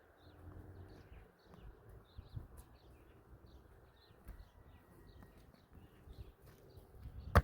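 A small bird chirping over and over, short high chirps about three a second, over a low outdoor rumble. A single sharp knock comes near the end.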